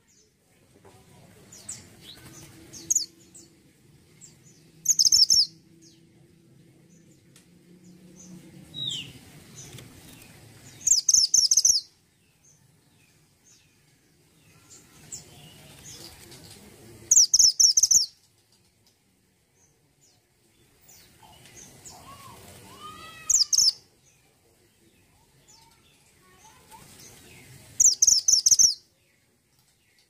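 A caged mantenan gunung (a minivet) singing: five loud bursts of rapid, high repeated notes about six seconds apart, with softer calls and a falling whistle between them.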